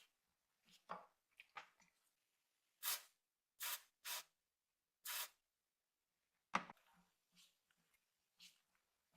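Separate short scraping strokes, about four in all, then one sharp knock about two-thirds of the way through, with faint small ticks between: hand work on the parts of a rusted vintage scale.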